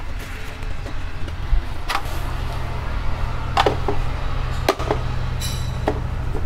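A few sharp plastic clicks and knocks as a screwdriver and a spirit level are handled against a plastic distribution board enclosure, with a brief high squeak about five and a half seconds in, over a steady low rumble.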